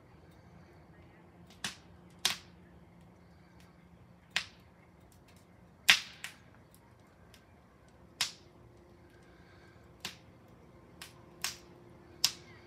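Fire in a steel fire pit popping and crackling: about ten sharp, irregular pops a second or so apart, the loudest about six seconds in. Noisy.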